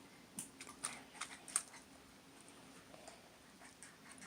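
Faint handling noise: a few soft clicks and taps in the first second and a half, then quiet room tone.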